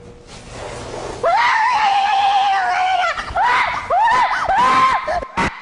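A long high-pitched scream held for about two seconds, then a run of short rising-and-falling shrieks.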